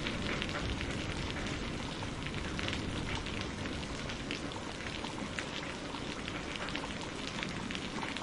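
Steady rain, with many separate drops ticking through an even hiss.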